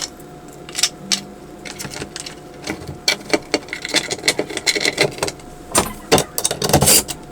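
Scattered clicks, taps and clattering of the wooden frame and metal mounting hardware being handled while a wooden cat hammock is fixed to a wall, with a short low hum about a second in. The clatter grows busier in the second half.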